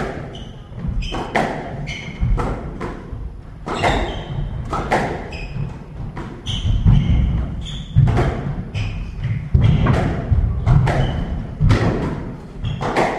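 Squash rally: sharp cracks of the ball off the rackets and walls about once or twice a second, with shoes squeaking on the wooden court floor and footfalls thudding between shots.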